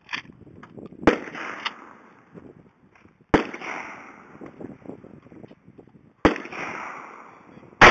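Four gunshots from rifles or shotguns at an outdoor firing range, a few seconds apart, each a sharp crack followed by a long fading echo.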